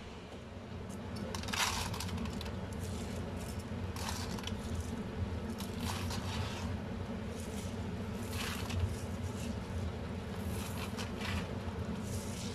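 Soaked rice being scooped by hand and spread over banana leaves in a steamer tray: irregular rustling and scraping strokes every couple of seconds, over a steady low hum.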